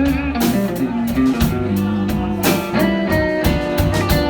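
Live blues band playing a slow blues, with guitar carrying the music between vocal lines over bass and drums.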